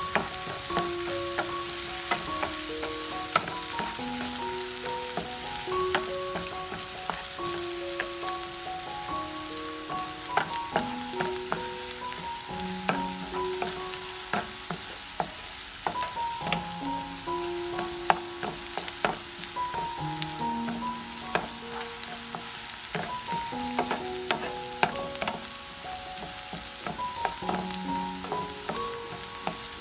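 Diced onions and curry leaves sizzling in hot oil in a frying pan, with the scrape and scattered taps of a wooden spatula stirring them. A slow melody of held notes plays underneath.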